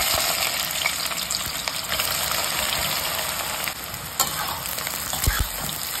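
Freshly added raw sliced onions sizzling hard in a kadhai of very hot oil on full flame, the first minutes of deep-frying them into birista. A metal spatula stirs them, clicking against the pan, with a dull bump a little after five seconds.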